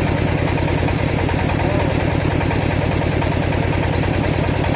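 Engine driving a circular-saw sawmill running steadily at a constant speed, with an even, fast low pulsing and no change in pitch.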